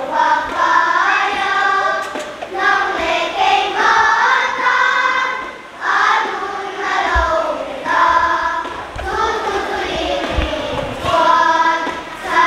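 Children's choir singing, in phrases of about a second each, with short breaths between them.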